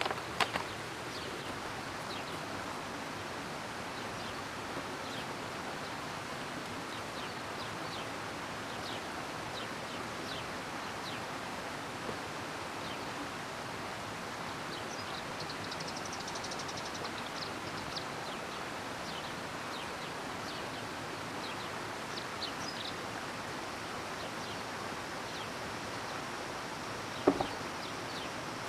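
Steady outdoor forest ambience: an even background hiss with faint high chirps scattered through. A few sharp knocks sound at the very start, and one loud knock comes near the end.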